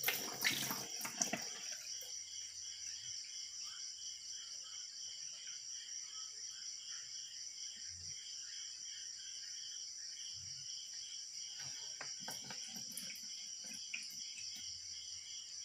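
Night insects, likely crickets, keep up a steady pulsing high chorus. Water splashes sharply in a basin in the first second or so as a hand stirs it, with a few softer splashes near the end.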